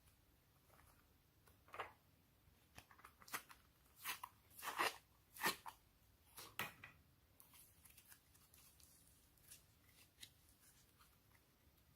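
Hands working homemade slime, giving a scatter of short sticky crackles and crunches, bunched most loudly in the middle and fading to faint small clicks near the end.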